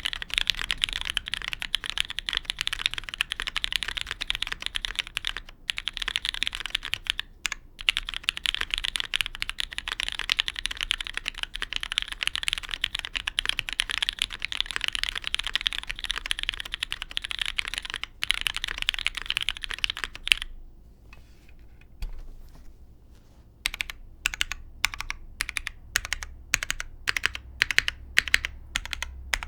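Typing on a custom mechanical keyboard with lubed linear Cherry MX Black switches, GMK keycaps, a polypropylene plate and an O-ring gasket mount. Fast continuous keystrokes stop about two-thirds of the way in, and after a short pause the typing comes back as slower, separate key presses, about three a second.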